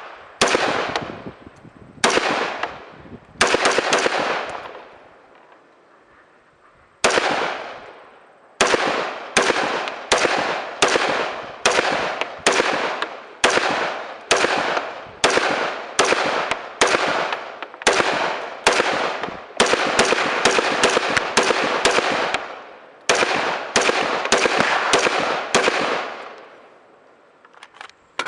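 Gunfire at a shooting range: a long string of sharp shots, each with a short echoing tail, fired at a quick semi-automatic pace. There is a pause of a few seconds about five seconds in, and the shots come faster and closer together in the second half.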